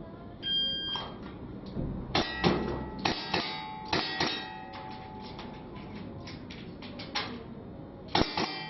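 A shot-timer start beep, then a string of sharp, clanging revolver shots. The shots come in a quick run, thin out to small clicks in the middle during the reload, and start again near the end.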